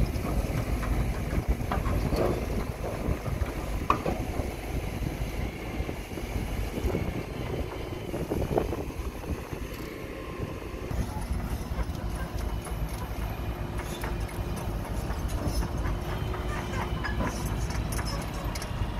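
Diesel engine of a rotary piling rig running with a steady low rumble, with a few metallic knocks as the rig handles a steel pile casing tube.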